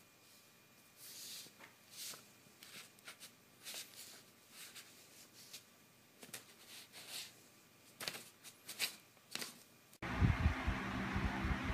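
Soft, scattered rustles and scrapes of paper as a cat's paw pats and drags across a stack of printed sheets. About ten seconds in, a louder low humming and throbbing starts abruptly.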